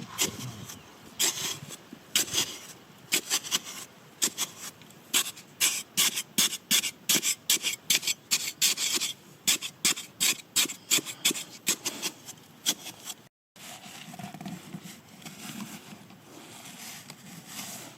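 Repeated scraping strokes, about three a second, loudest in a steady run in the middle. The sound cuts out for a moment, then turns to fainter rubbing.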